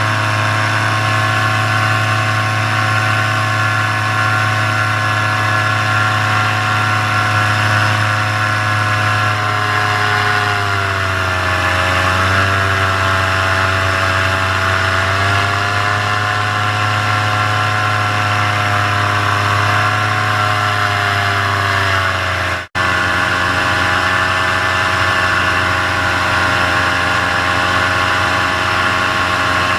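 Paramotor engine running steadily at full throttle in flight, an even drone whose pitch sags slightly and recovers in the middle. The sound cuts out for an instant a little past two-thirds of the way through.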